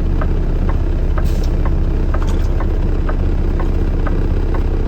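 Vehicle engine idling at a standstill, heard from inside the cab, with a turn-signal indicator clicking steadily about twice a second.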